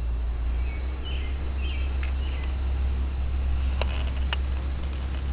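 Van Norman No. 555 horizontal surface grinder running: a steady low motor hum with a faint high whine above it, and a couple of light clicks about four seconds in.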